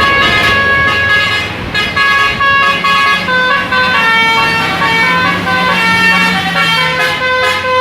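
Bus telolet basuri horn playing a quick melody of held notes that change pitch every fraction of a second, with a bus engine running underneath.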